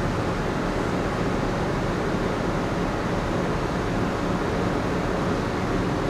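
Steady interior hum of the moored Ogasawara Maru (second generation): ventilation running with a low machinery drone underneath, unchanging throughout.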